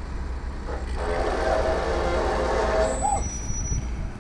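Heavy machinery straining as a crane hoists a tilted Komatsu excavator out of the mud: a steady low engine drone, a louder mechanical rush for about two seconds, and brief thin high squeals near the end.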